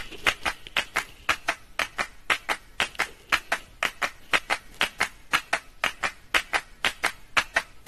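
Rhythmic hand clapping, about five claps a second.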